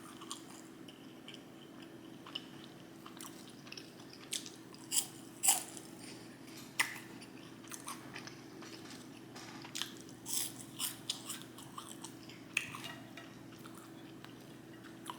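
Close-miked chewing and biting of food, with irregular crunchy and wet mouth clicks, the loudest about five seconds in. A steady low hum runs underneath.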